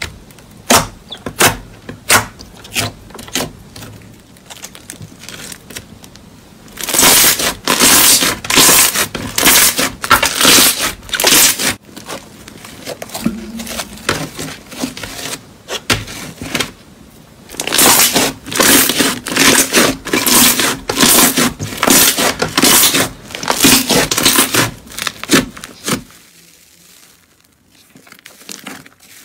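Slime being pressed and squished by hand: a few sharp separate pops at first, then long runs of dense crackling and sticky tearing.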